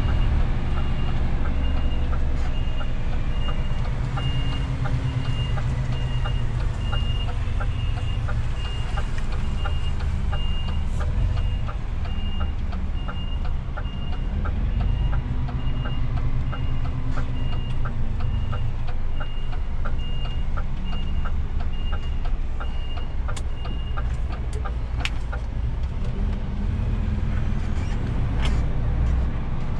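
DAF CF 450 truck's reversing alarm beeping in a steady, evenly spaced run over the diesel engine's low rumble, heard from inside the cab. The beeping stops about 24 seconds in, with a few sharp clicks near the end.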